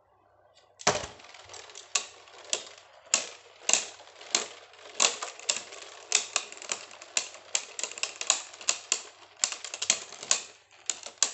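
Two Beyblade Burst tops, Cho-Z Achilles and Geist Fafnir, spinning in a plastic stadium and clacking against each other and the stadium wall. A loud first clack comes about a second in, then an irregular run of sharp clicks, roughly two to four a second, that dies away near the end.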